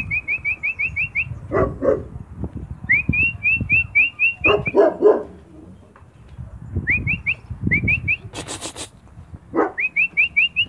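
Spanish mastiff puppies giving a few short barks, in small clusters. Over and around them, a bird repeats quick runs of high rising chirps, several notes a second. A brief rustling hiss comes about eight seconds in.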